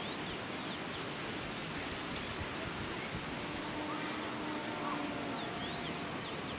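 Steady outdoor background noise with faint scattered clicks and a few faint bird chirps. A distant animal call, one low held note, sounds for about two seconds a little past the middle.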